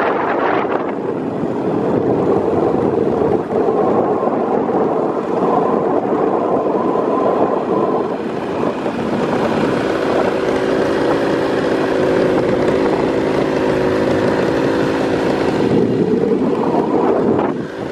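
Paramotor engine and propeller running steadily in flight, with wind rushing over the microphone. The engine note shifts about eight seconds in and again near the end.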